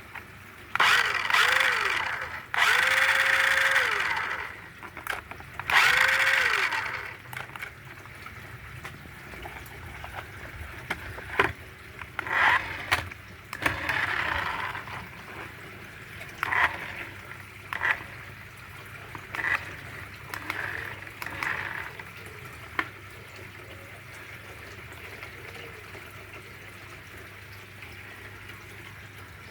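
Small electric motor of a toy remote-control car spinning up in three short whirring bursts, each rising in pitch, holding and dropping away, followed by clicks and a few shorter, fainter whirs.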